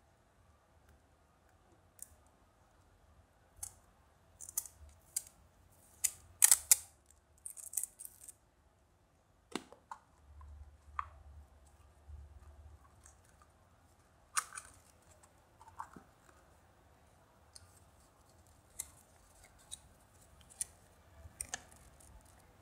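Yellow plastic gashapon capsule being twisted and pried open by hand: irregular sharp plastic clicks and snaps, densest and loudest about four to eight seconds in, with scattered lighter clicks after. Near the end the folded paper insert from the capsule is handled.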